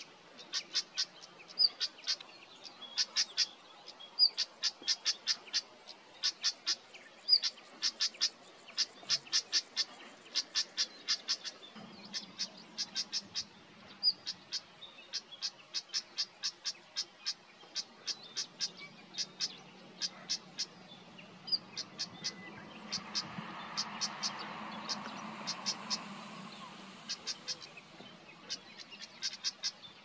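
Stonechat calling: runs of quick, hard clicking notes, with now and then a single thin whistled note before a run. A faint low rumble swells and fades in the second half.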